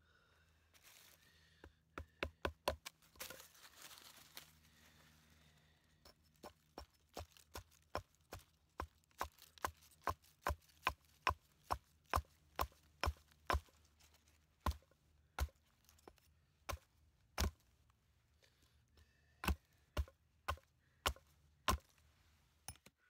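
A blade chopping into a small piece of wood in a long run of sharp, separate strikes, about one to two a second. Knife cuts shape the trunk of the piece, and a small axe takes over for thinning cuts in the later part. A short rustling hiss comes about three seconds in.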